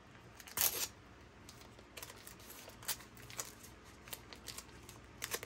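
A strip of adhesive tape being handled and pressed onto a cordless vacuum's plastic body to hold two screws: a short crackle of tape about half a second in, then light rustling and small taps, with a few clicks near the end.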